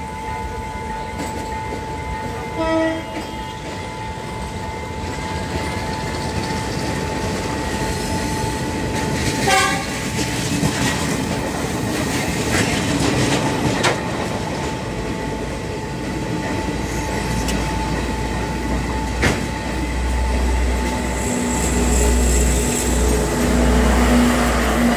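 Diesel train passing close by at a level crossing, its wheels clattering over the rails, with two short horn blasts about 3 s and 10 s in. A deep engine rumble builds through the last several seconds.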